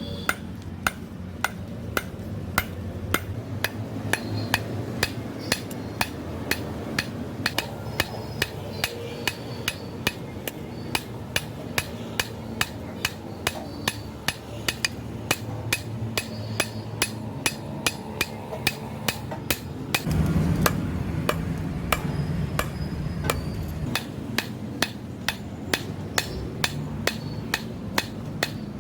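Hand hammer striking steel on an anvil while forging a billhook blade, with even blows about two a second, each with a short metallic ring. A steady low rumble runs underneath and grows louder about twenty seconds in.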